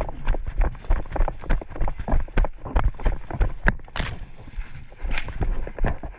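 Footsteps of a player running, quick heavy strides at about three a second, each one a thud with a rattle of gear.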